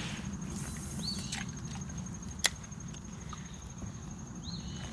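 Quiet outdoor ambience with a steady low background noise and a thin, steady high-pitched tone. A short chirp-like note sounds about a second in and again near the end, and a single sharp click about halfway through is the loudest sound.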